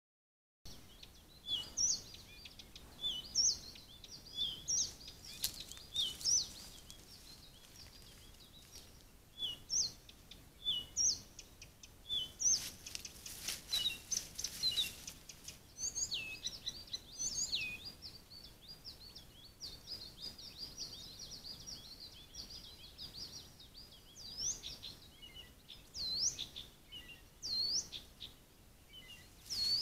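Small songbirds singing and calling: many short, repeated chirps and quick sweeping high notes, sometimes overlapping, over a faint outdoor background.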